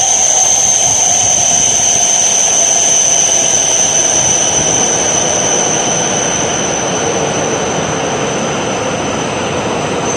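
E5 series Shinkansen train pulling into the station and slowing along the platform. Its rushing running noise is steady, and a motor whine falls slowly in pitch as it brakes.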